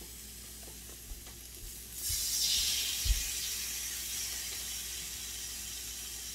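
Thin-sliced marinated beef sizzling on the grate of an electric tabletop grill. The sizzle jumps up sharply about two seconds in as fresh slices go onto the hot grill, is loudest for about a second, then settles to a steady sizzle. A low thump sounds about three seconds in.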